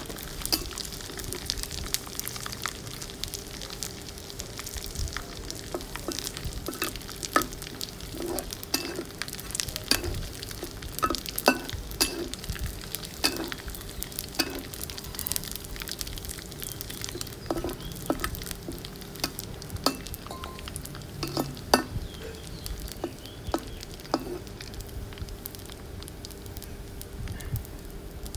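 Dried anchovies (ikan bilis) frying in hot oil in a wok, a steady sizzle, with frequent clicks and scrapes of a metal wok spatula stirring them as they are fried until crisp.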